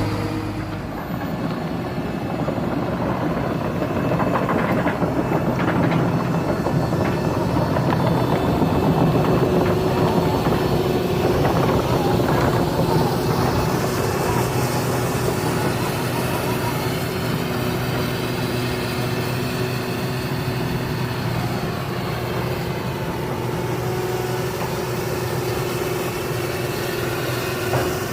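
Hydraulic excavator's diesel engine running steadily at work, swelling louder for several seconds in the first half.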